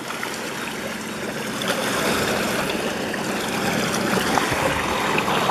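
Water churning and splashing in the propeller wash of a Torqeedo Cruise 4.0 electric outboard running underway. A faint, steady, low-pitched motor whine sits underneath.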